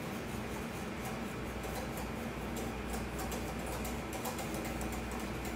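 A spoon stirring milk in a metal saucepan, scraping the bottom in a run of faint, irregular ticks, over the steady hiss of a portable gas burner. The scraping keeps the sugared milk base from catching on the bottom of the pan while it heats.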